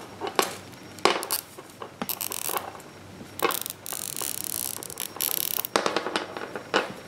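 Small nylon zip tie being threaded and pulled tight, its teeth ratcheting through the lock in several short runs of rapid clicks, with light handling clicks from the wire and hook.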